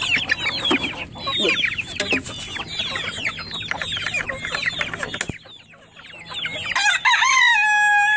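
A flock of chickens clucking, many short falling calls overlapping, thinning out briefly just past the middle; near the end a rooster crows, one long held call.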